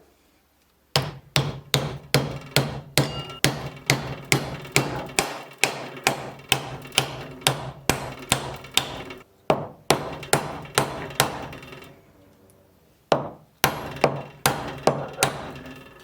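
A hammer striking repeatedly at about two to three blows a second, each blow ringing briefly. The blows stop for about a second and a half, then start again near the end.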